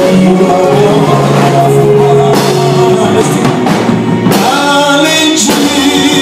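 Live gospel worship band playing, with drum kit, electric guitar and bass under held singing. Several sharp cymbal hits come in the second half.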